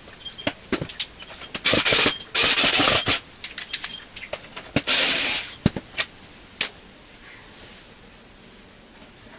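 Hard plastic parts and tools clicking, knocking and rattling as a dishwasher's pump cover is worked loose. Three loud hissing bursts come about two, three and five seconds in. The sounds stop about seven seconds in.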